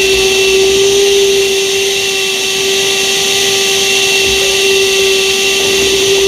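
DeWalt DCV580H cordless 2-gallon wet/dry vacuum running steadily, sucking water from a bucket through its hose. The motor gives a steady whine over a loud rushing hiss of air.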